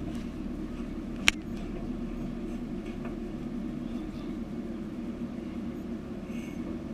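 Boat engine running steadily, a low drone, with one sharp click about a second in.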